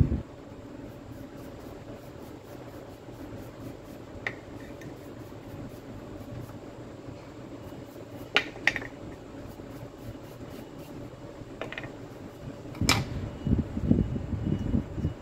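Steady background hum with a few light clicks as small drill parts are handled, then louder rubbing and knocking near the end as gloved hands work the drill's small motor apart.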